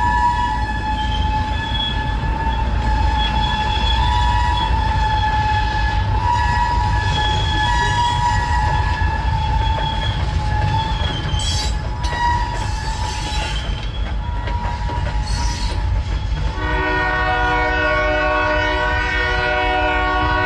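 Freight cars rolling past close by, with a heavy steady rumble and a thin, steady high squeal from the wheels. About three-quarters of the way through the sound switches to a diesel locomotive horn held in one long, steady blast.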